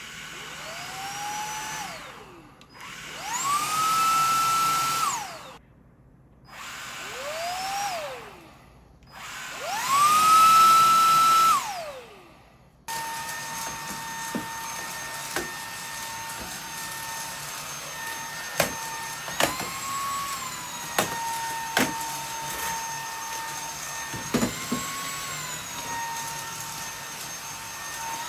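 Minix The Slim Station cordless stick vacuum's motor. It is switched on and off four times, each time whining up to speed and winding down, alternating a lower and a higher pitch. After about 13 seconds it runs steadily, its pitch briefly rising twice, with scattered sharp clicks.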